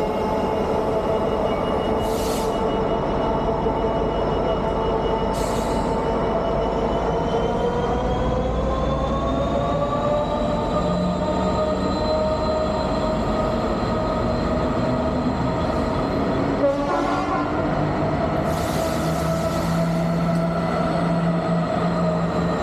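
Two Class 66 diesel locomotives, each with an EMD 710 two-stroke V12, thrashing under heavy load as they pull away with a 710-ton train. The engine note climbs in pitch from about six to twelve seconds in and then holds, with a few short hisses over it.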